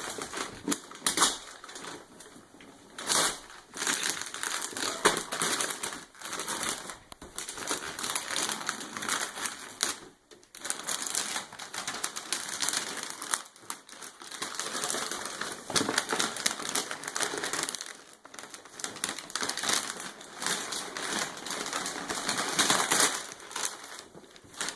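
Gift wrapping paper being torn and crumpled by a child's hands as a present is unwrapped, in irregular bursts of crackling and rustling with short pauses.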